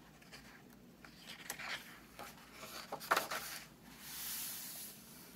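A picture book's paper page being turned by hand: rustling and scraping, loudest about three seconds in, then a soft hiss as the page slides flat near the end.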